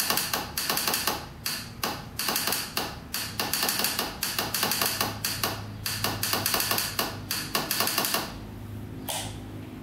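Starter solenoid on a 1998 Arctic Cat 300 ATV clicking rapidly in quick repeated bursts as the key is turned, without the starter turning the engine over, stopping about eight seconds in. The solenoid gets 14 volts, so the owner thinks the starter motor is bad.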